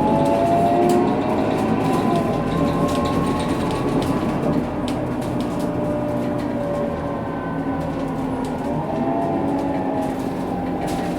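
Scania K230UB bus in motion, its differential letting out a high axle whine: several whining tones that slide slowly down in pitch and then climb again near the end as road speed changes, over the steady running of the Scania DC9 engine and road noise.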